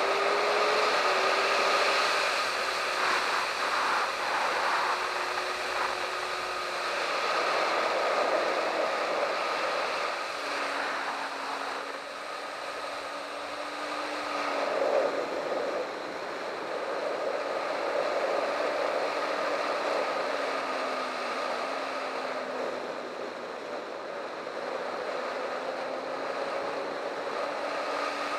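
Sport motorcycle engine running hard at speed, heard from a camera on the bike under heavy wind rush. The engine note drops about ten seconds in, then rises and falls gently.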